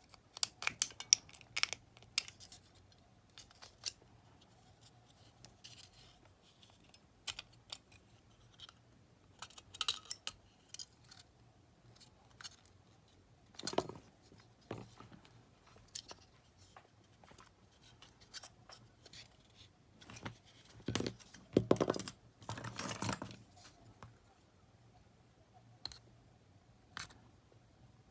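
Small hand-work sounds on a cassette Walkman's battery box: scattered sharp clicks and taps of small metal parts and tools, with a quick run of clicks at the start and two longer scraping or rustling passages later on, as a battery contact that does not spring back is reworked.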